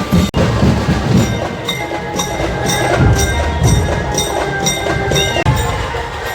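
Loud procession percussion music: deep drum beats under a sharp metallic strike about twice a second, as from cymbals. The sound drops out for an instant just after the start.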